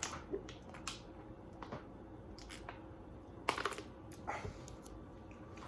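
Scattered faint clicks and small mouth sounds, lip smacks and tongue clicks, as spicy ramen is tasted while waiting for the heat to come on. A short cluster of clicks comes about three and a half seconds in.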